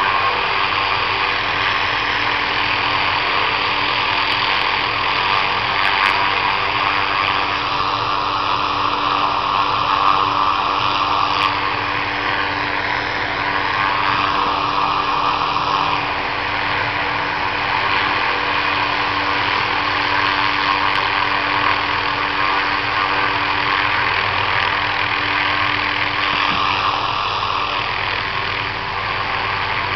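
Helicopter running steadily, engine and rotor noise with a high whine that dips in pitch and comes back a couple of times.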